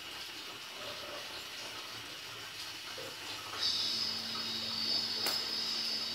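A steady hiss like running water starts suddenly about three and a half seconds in, with a low steady hum under it and a single click a little later.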